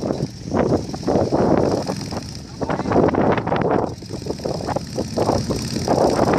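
Dune buggy engine running, its revs surging up and down irregularly.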